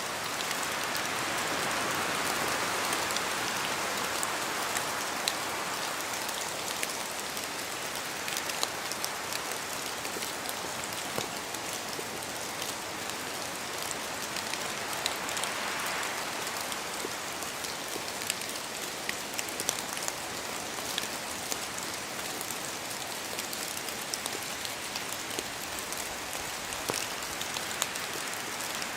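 Steady rain falling through forest trees, with many separate drops pattering and ticking on leaves and the ground. A swell of fuller rushing noise, likely gusts of wind, rises in the first few seconds and again about halfway through.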